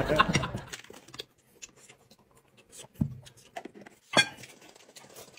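A few scattered light knocks and clicks of tableware being handled at a table, the loudest about four seconds in.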